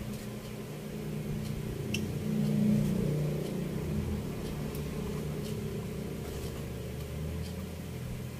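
A low mechanical drone that swells about two to three seconds in and then settles, with a few faint clicks as the circuit board is handled.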